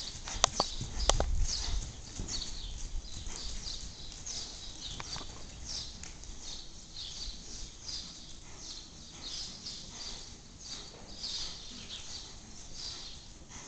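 Hoofbeats of a Gypsy Vanner horse trotting on soft sand arena footing, with a cluster of sharp knocks and thuds about a second in. A high chittering runs along steadily underneath.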